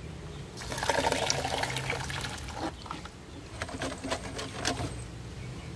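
Wet concrete splashing and slopping into a baluster mold, starting about half a second in, then the squelch and small clicks of a steel rod worked up and down in the wet concrete to drive out air pockets.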